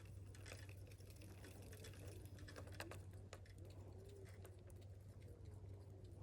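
Near silence: faint, irregular small clicks over a low steady hum.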